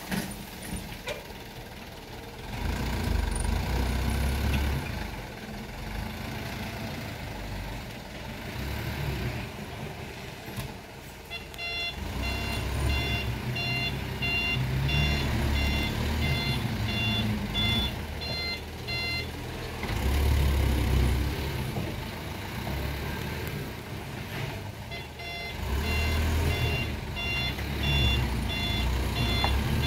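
Dump truck's diesel engine running as it manoeuvres, its low rumble rising and falling. Its reversing alarm beeps repeatedly from about a third of the way in, stops for a few seconds, then starts again near the end.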